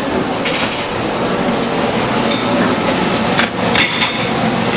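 Dining-hall clatter: a few sharp knocks and clinks, the loudest cluster about three and a half to four seconds in with a brief metallic ring, over steady room noise.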